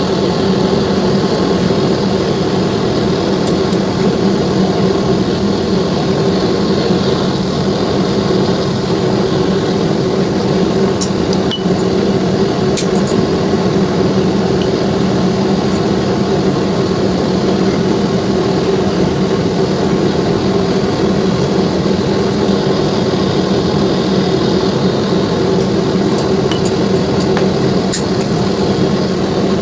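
A loud, steady machine hum with a few light clinks now and then.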